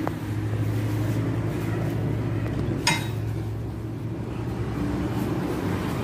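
Steady low machine hum, with one sharp click about three seconds in.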